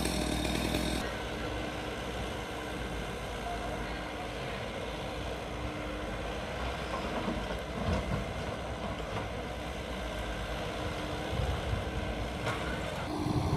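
Diesel engines of dump trucks and a small excavator running steadily, a continuous hum with no sharp events. The sound changes abruptly about a second in.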